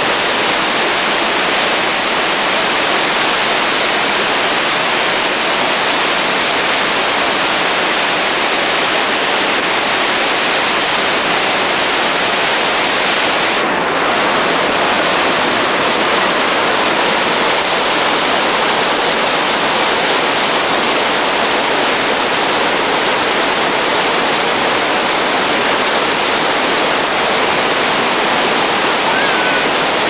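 Steady rush of a tall waterfall close by, falling water plunging onto rocks.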